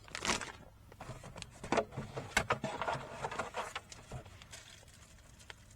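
Things being handled and moved about: scattered rustles, clicks and light knocks, busiest in the first half.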